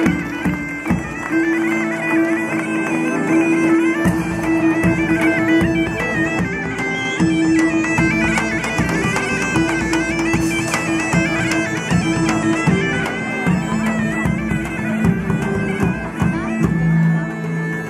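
Bagpipes playing a stepping melody over a steady drone, with a large drum beating along: a band playing live.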